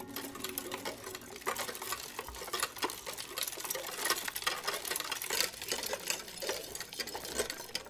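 A small machine clattering rapidly, a dense run of irregular clicks and ticks that starts abruptly.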